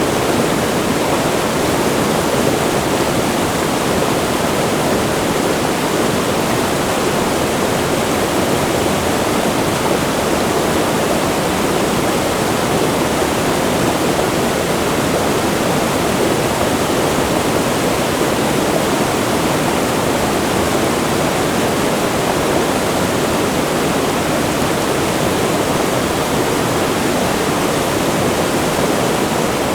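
Wide river rushing close to a waterfall: a loud, steady wash of rushing water.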